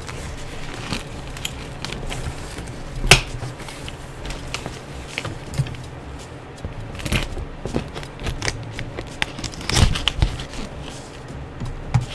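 A cardboard box and its crumpled paper packing being handled and pulled apart by hand: irregular rustling with scattered knocks and clicks, the sharpest about three seconds in and others near seven and ten seconds.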